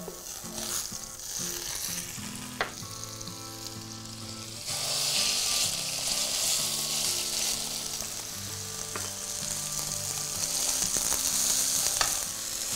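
Pork tenderloin searing in butter and oil in a hot frying pan. A faint sizzle of melting butter turns into a loud, steady sizzle about five seconds in, as the meat goes into the pan.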